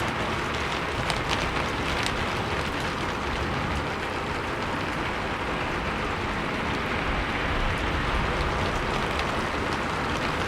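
Steady rain falling on a roof, an even hiss with scattered sharper drop strikes, a few louder ones a second or two in and again near the end.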